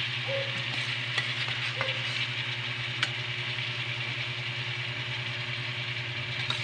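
Pork and liver adobo sizzling as it is sautéed dry, without its broth, in a metal wok, with a few sharp clicks of the spatula against the pan.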